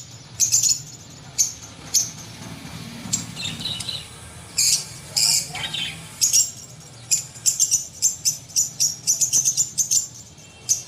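A small bird chirping in quick runs of short, sharp notes, with one falling whistle about five and a half seconds in, over a steady low hum.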